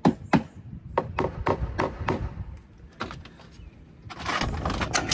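Sharp knocks and taps on a corrugated metal roof during conduit and wiring work, about a dozen in quick irregular succession, then a rustling, scraping noise from about four seconds in.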